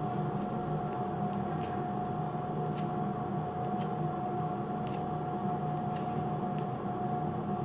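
Sticky sugar wax being pressed and worked onto an underarm with the fingertips, giving faint sharp sticky clicks about once a second over a steady hum with one constant tone.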